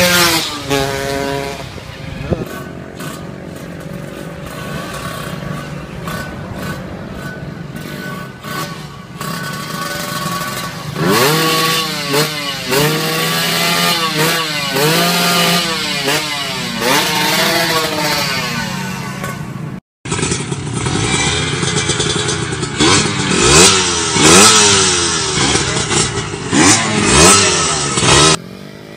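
Small motorcycle engines revving again and again, the pitch rising and falling in quick repeated sweeps. The sound breaks off abruptly about twenty seconds in, and another stretch of louder revving follows.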